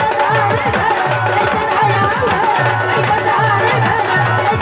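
Marathi folk music: a hand drum beats a steady rhythm of low, pitch-bending strokes under a woman's wavering sung melody.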